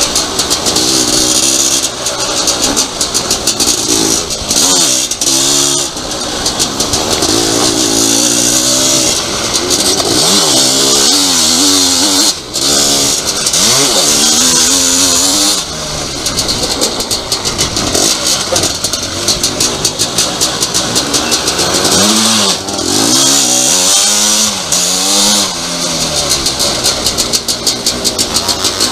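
Motocross engine heard from an onboard camera, revving hard up and down as the machine accelerates and brakes through the corners, under loud wind and track hiss. Several times the throttle is shut off briefly and then opened again.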